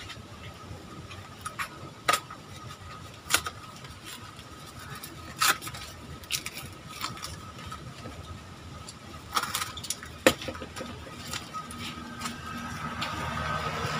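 Cardboard and packing tape being peeled and torn off a wrapped flyback transformer by hand: scattered sharp crackles and rips with quieter rustling between. A low background rumble swells near the end.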